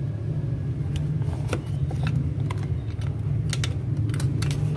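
Scattered light clicks and knocks of a children's tricycle's plastic footrest being pulled down and folded back on its frame, over a steady low hum.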